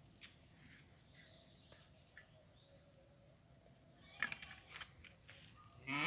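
Faint birdsong, short rising chirps every second or so, over a quiet rural background. A few sharp clicks come about four seconds in, and a man's voice starts near the end.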